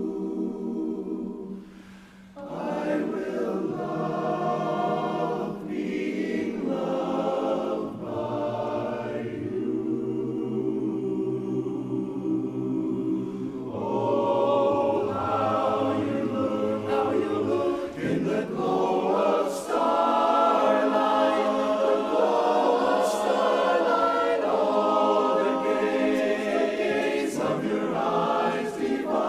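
Barbershop chorus singing a cappella in close harmony, holding sustained chords, with a brief break about two seconds in and a louder, fuller passage from about halfway.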